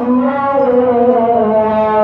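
A man's voice chanting a melodic Islamic chant in long held notes that slide slowly from one pitch to the next.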